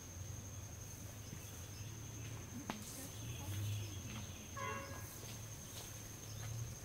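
Outdoor ambience carried by a steady high insect trill over a low rumble, with one sharp click a little under three seconds in and a short pitched call about two seconds later.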